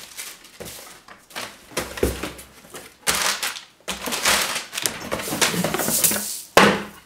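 A cardboard box being unpacked by hand: flaps and plastic packing rustling and crinkling in irregular bursts, with a couple of knocks as the contents are handled.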